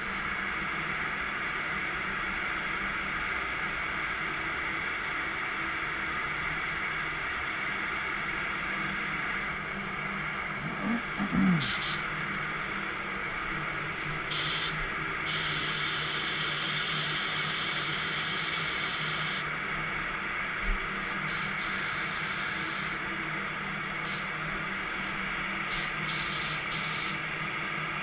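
Aerosol spray paint can hissing onto a bumper in bursts: a few short sprays, one long spray of about four seconds, then more short sprays, over steady background noise.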